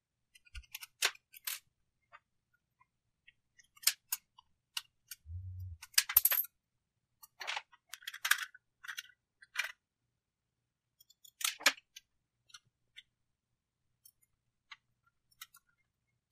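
Scattered small clicks, taps and scrapes of a precision screwdriver and a 2.5-inch drive's metal mounting bracket and screws being handled, as the bracket comes off a laptop hard drive and goes onto an SSD.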